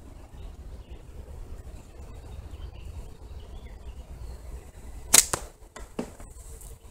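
A slingshot shot: the rubber bands of a forged extended-fork slingshot snap sharply on release about five seconds in, launching a 3/8-inch steel ball. Under a second later come two quieter knocks as the ball reaches the target area.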